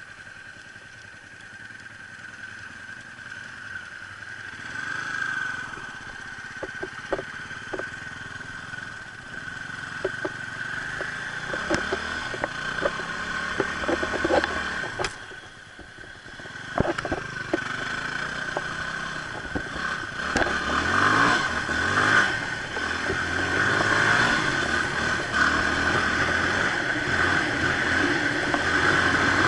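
Motorcycle engine running and riding off, rising and falling with the throttle, with scattered clicks and clatter over it. It dips briefly about halfway through, then picks up again and runs louder toward the end.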